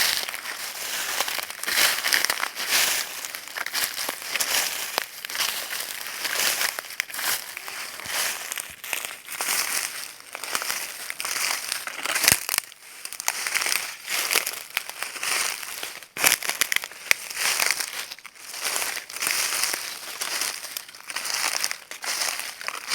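Footsteps crunching through dry leaves: a continuous run of crackling crunches that swells with each step. Two sharper clicks come around the middle.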